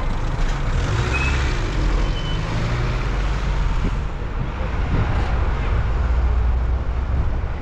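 Motor vehicle running with a steady low engine rumble and road noise.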